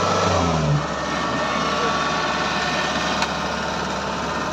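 Kubota DC-70G mini combine harvester running steadily as it harvests paddy, its engine and working mechanism producing a continuous mechanical drone. A brief rising whine comes just under a second in, after which it runs a little quieter.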